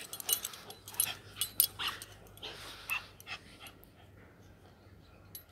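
Samoyed puppy panting in a few short breaths, with light clinks of its metal chain leash in the first couple of seconds.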